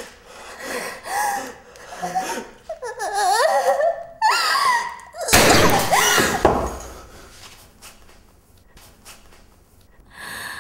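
Raised voices shouting and screaming in a tense struggle, with a sudden loud burst of noise about five seconds in, the loudest moment. It dies down to quieter crying or laughter.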